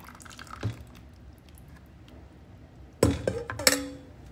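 Kitchen bowls and a spatula knocking and clinking against a glass mixing bowl: faint for the first three seconds, then a loud cluster of sharp knocks and clinks, some briefly ringing.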